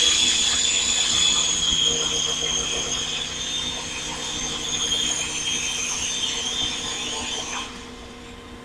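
Small modified helicopter's electric motor and rotor whining in flight, the high pitch wavering slightly with throttle, then stopping about three-quarters of a second before the end.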